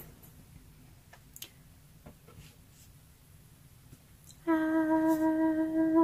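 A few faint handling clicks, then near the end a woman hums one steady note for about two seconds.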